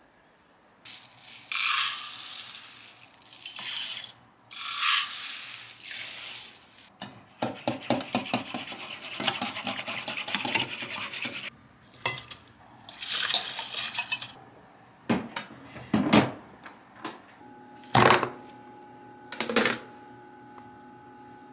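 Kitchen prep sounds: a spoon stirring and scraping rapidly against the inside of a glass measuring jug, with quick clinks. Before it come two loud hissing bursts of a couple of seconds each, and after it several separate knocks of dishes or containers.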